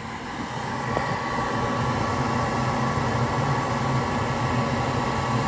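Carrier gas pack's draft inducer blower motor running steadily, a whir with a low hum and a faint thin whine. The inducer runs, but the pressure switch it should close is faulting, which is put down to a clogged switch port.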